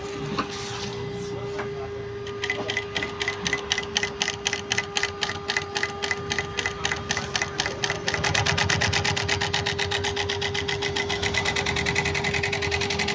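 Singer S0303 industrial leather sewing machine humming, then stitching from about two seconds in at a steady rhythm of roughly five stitches a second, speeding up to a fast run about eight seconds in.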